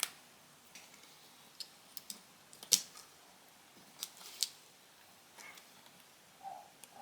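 A few small, sharp clicks and taps from working on a smartphone's internal parts by hand, the loudest a little before halfway and two more soon after.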